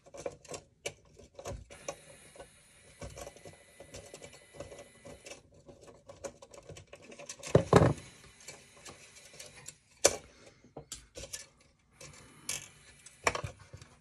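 Metal parts of a rotary phone's dial mechanism being worked loose by hand and with pliers as its spring is released: scattered light clicks, scrapes and rattles, with a louder thump about eight seconds in and sharp clicks near ten and thirteen seconds.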